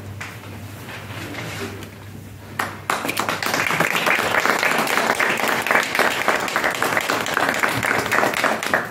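A few seconds of hushed room sound, then audience applause breaks out about three seconds in and goes on steadily.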